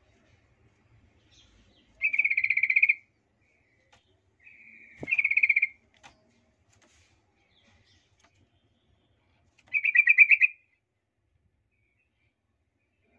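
Yellow-vented bulbul giving three short bursts of rapid, chattering calls, each about a second long, with pauses of several seconds between them.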